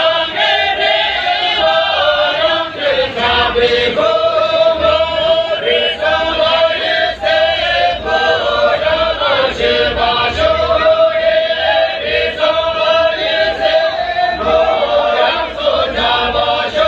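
A group of voices singing a Tamang folk song together in unison, without instruments, drawing out long notes.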